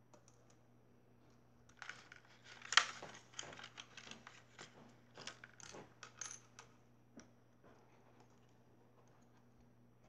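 Small plastic toy pieces clicking and tapping on a wooden tabletop as they are handled and fitted together: a quick, irregular run of light clicks from about two seconds in until about seven seconds, with one sharper knock about three seconds in.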